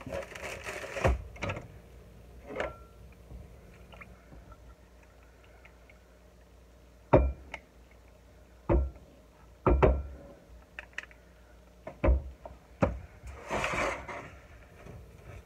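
A spatula knocking and tapping against glassware as melted butter is scraped from a glass measuring cup and stirred into crumbs in a glass bowl: about ten separate clinks spread out, some with a short ring. A brief stretch of scraping and stirring comes near the end.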